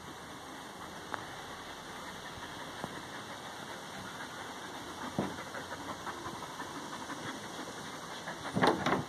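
Two young dogs growling in play as they tussle over a rubber toy on grass, with small scuffling clicks. There is a sharper grunt about five seconds in and a louder double outburst near the end.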